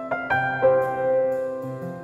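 Background piano music: a few notes struck in the first half-second, then held and left to fade.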